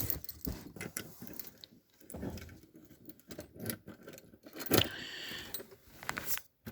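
Scattered light clicks, taps and rustles of objects being handled and moved about, with a louder knock and brief rustle about five seconds in.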